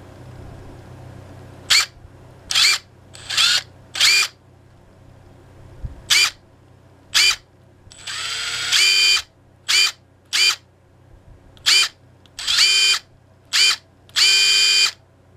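Makita TD171D 18V brushless impact driver spinning its bit freely with no load, in about a dozen separate trigger pulls. Some are short blips of motor whine; a longer run a little past the middle starts with a rising whine, and the longest comes near the end.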